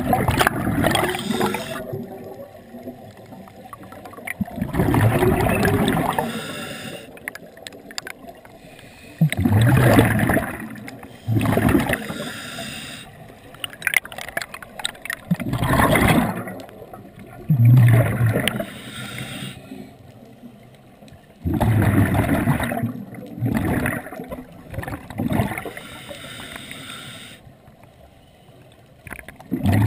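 Scuba diver breathing through a regulator underwater: a loud gurgling burst of exhaled bubbles every few seconds, with quieter stretches between breaths.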